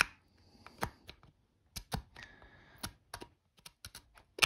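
Light, irregular clicks and taps of hands handling the arc welder's transformer coils and core, with a short scrape about two seconds in.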